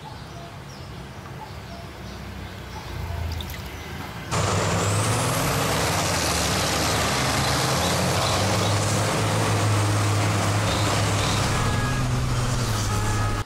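Heavy off-road racing trucks running hard through mud and water: a low engine drone, quieter at first, then about four seconds in a loud rushing noise breaks in suddenly over the engines and holds steady until it cuts off abruptly.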